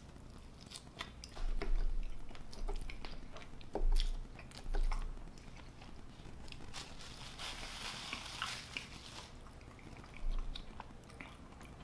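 Close-miked chewing and mouth sounds of someone eating chili cheese fries, with soft wet clicks, a few low thumps and a short stretch of hiss about seven seconds in.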